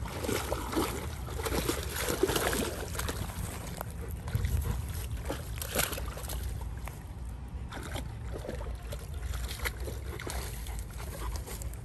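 A dog wading through shallow pond water, the water sloshing and splashing around its legs in uneven bursts as it moves toward the bank and climbs out.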